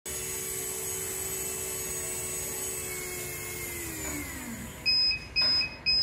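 Small BO DC gear motors whining steadily, then winding down in pitch to a stop about four seconds in. A buzzer then starts beeping about twice a second: the anti-sleep alarm set off when the eye-blink sensor detects closed eyes.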